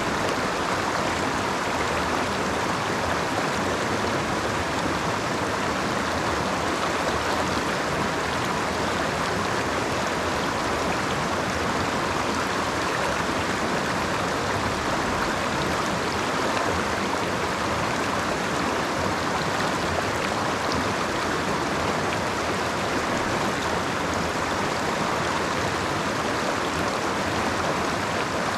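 Creek water flowing, a steady even rushing sound with no breaks.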